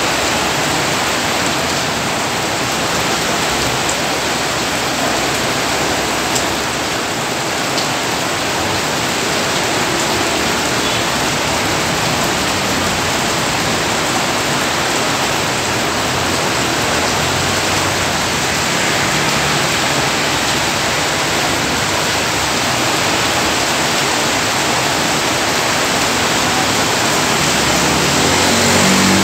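Heavy rain falling: a loud, steady hiss of downpour with no break. Near the end a motor vehicle's engine hum rises under it.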